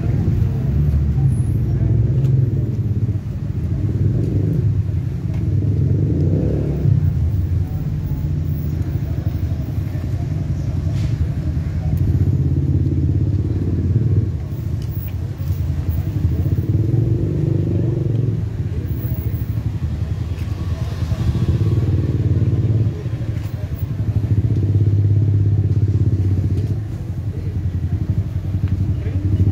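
A motor vehicle's engine running steadily, with low voices of people in the background.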